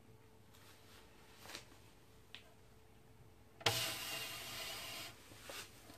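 Handling noise: a couple of faint knocks, then a rubbing scrape lasting about a second and a half, with a short softer rub after it.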